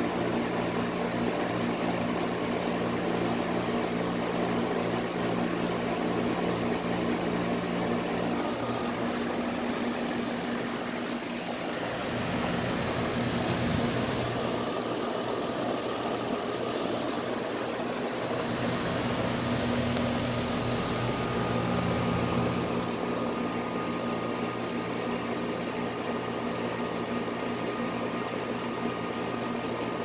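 Outdoor central air-conditioner condensing units, among them a Goodman GSX14, running: a steady rush of air from the condenser fan over a low compressor hum. The low hum changes partway through, then settles back.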